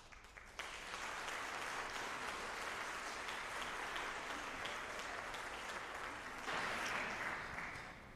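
Congregation applauding in a church. The clapping starts about half a second in, grows louder near the end, then fades.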